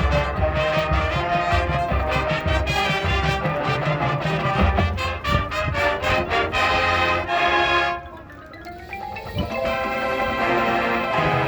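High school marching band playing, with brass and mallet percussion such as marimba and xylophone over low drum hits. About eight seconds in the music drops suddenly to a quieter passage, then builds back up.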